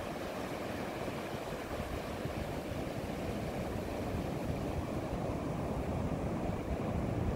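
Ocean surf breaking and washing up a beach, a steady rush of water, with wind buffeting the microphone and adding a gusty low rumble.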